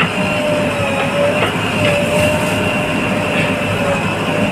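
JCB 3DX backhoe loader's diesel engine running under load as the backhoe arm digs into an earth bank, with a steady high whine held over the engine's rumble and a few faint knocks.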